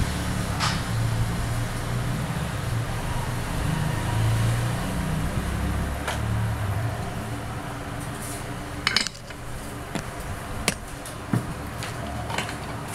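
Hot-air rework station blowing steadily on a phone circuit board to heat and lift a soldered IC, a low hum under the rush of air. From about nine seconds in come a few sharp clicks and taps.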